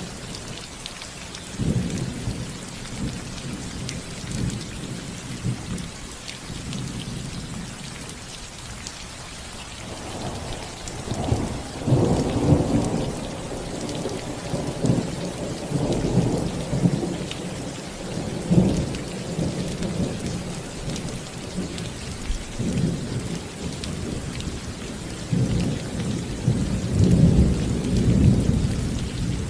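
Steady rain falling on a roof, with thunder rumbling through it in long rolling swells, loudest about twelve seconds in and again near the end.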